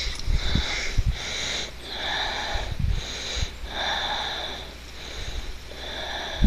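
A person breathing close to the microphone: noisy, hushing breaths about once a second, with a few soft low thumps from the phone being handled.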